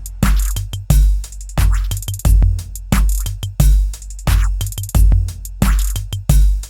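Background electronic music with a drum machine beat: a heavy kick drum and crisp hi-hat clicks repeating at a steady tempo, about three hits every two seconds.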